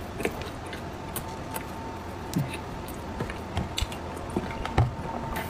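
Soft chewing with small scattered mouth clicks as a dense mung bean cake is eaten, then sips of milk from a carton.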